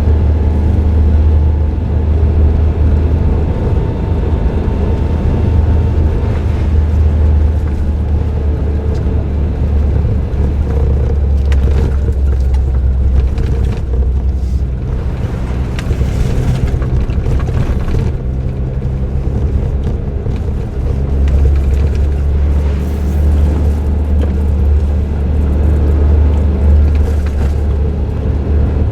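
Suzuki Jimny JB23W with an aftermarket muffler, its 660 cc turbocharged three-cylinder engine droning steadily under way, with tyre and road noise. The road hiss grows for a stretch about halfway through while the low drone eases.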